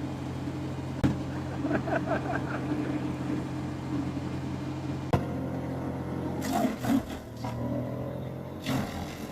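An engine running steadily, with sharp knocks about a second in and again about five seconds in; after about six and a half seconds the engine note changes and a higher tone glides upward.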